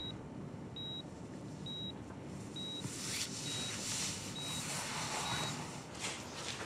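Hospital patient monitor beeping: a short, high beep repeating evenly a little faster than once a second, about seven times, fading out shortly before the end, over a soft hiss.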